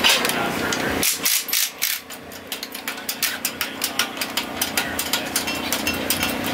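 Cordless impact driver working bolts on an engine hung from a hoist: a rapid, irregular clatter of sharp metallic clicks starting about a second in.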